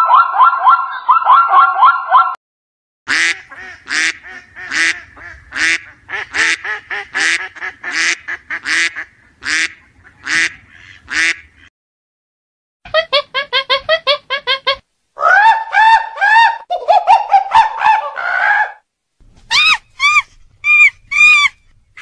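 Several short animal-call clips edited together: a zebra's quick, barking bray at the start, then a long series of single goose honks, then other short runs of animal calls.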